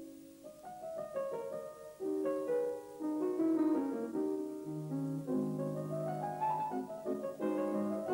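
Background piano music, a slow line of separate notes over lower chords.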